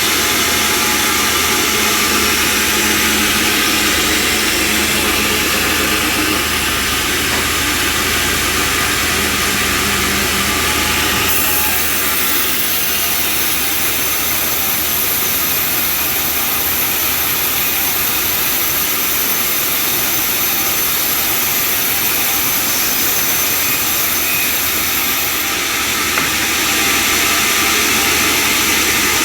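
Homemade bandsaw sawmill running steadily with a loud, continuous mechanical noise. A brighter, higher hiss comes in about eleven seconds in and drops away some four seconds before the end.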